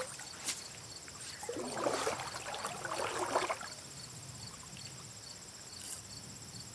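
Steady late-summer insect chorus, taken for grasshoppers, a continuous high trill with chirps repeating about twice a second. Between about one and a half and three and a half seconds in, water sloshes and splashes around legs wading in a shallow creek, the loudest sound.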